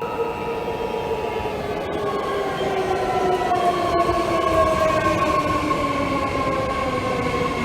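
Loud rumbling noise carrying a chord of several tones that slide slowly downward together, the sound of a passing vehicle.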